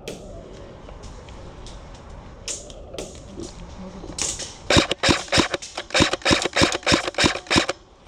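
Airsoft rifle firing a rapid string of about a dozen sharp shots, roughly four to five a second, starting about halfway through and stopping shortly before the end.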